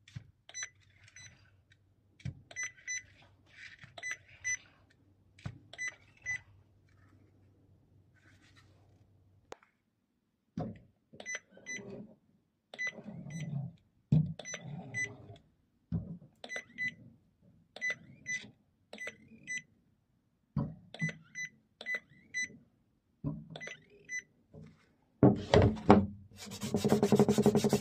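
Handheld inkjet marking printer beeping in quick runs of short high beeps as it is pressed onto the surface, the signal to swipe it and print, again and again. Knocks and scraping of the printer being set down and drawn across plywood and cardboard come between the beeps, with a louder rustle near the end.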